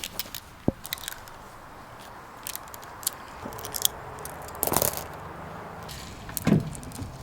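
Scattered clicks, scrapes and rustles of shooting gear being handled, with a few louder knocks.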